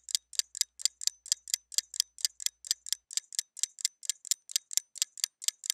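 Ticking-clock sound effect counting off a timed challenge: fast, even ticks, about five a second, alternating loud and soft like a tick-tock.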